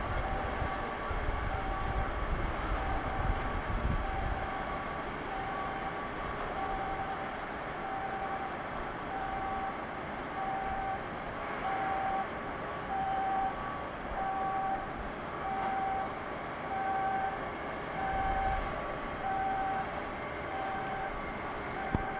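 An electronic warning beeper sounding a steady tone about once a second, over steady industrial background noise, with a low rumble in the first few seconds and again near the end.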